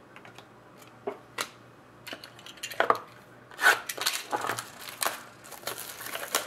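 Trading cards and pack wrappers being handled: a few scattered clicks and light rustles at first, then from about halfway through a busier run of crinkling, shuffling and snapping as cards are sorted and packs opened.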